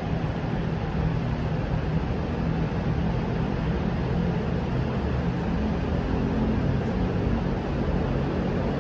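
Steady low rumble and hiss of background noise with a faint even hum underneath, unchanging throughout.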